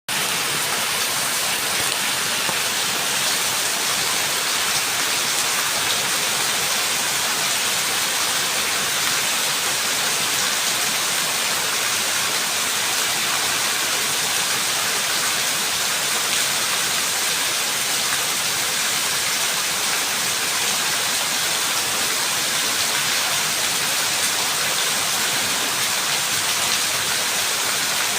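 Steady rain falling, a dense, even hiss that holds at one level throughout.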